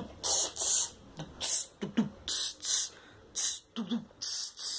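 A boy making hissing mouth sounds in beatbox style: about six short 'tss' bursts in under five seconds, with a few brief grunts of falling pitch between them.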